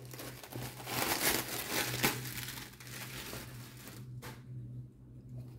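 Thin black plastic bag crinkling and rustling as a cardboard box is pulled out of it, loudest in the first couple of seconds and dying down near the end.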